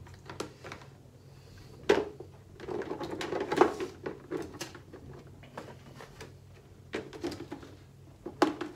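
Clear plastic buckets and lid being handled on a table: a sharp knock about two seconds in, a cluster of plastic knocks and rattles around three to four seconds, and single knocks again near the end.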